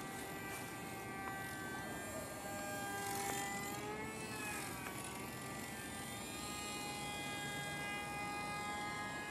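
Micro brushless motor (HobbyKing AP03) spinning a 3020 propeller on a small single-cell foam RC plane in flight: a steady high-pitched whine with several tones, its pitch dipping and wavering a few seconds in.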